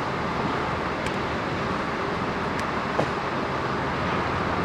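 Passenger train running along the line, heard from an open carriage window: a steady rumble of wheels on the rails mixed with air rushing past. There is a single short knock about three seconds in.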